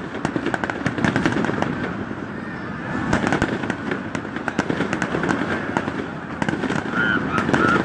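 Fireworks going off in quick succession: a dense run of sharp pops and crackles with no let-up.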